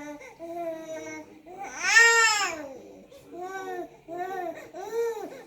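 Newborn puppy crying. A quieter, even whine comes first, then a loud rising-and-falling cry about two seconds in, followed by three shorter cries.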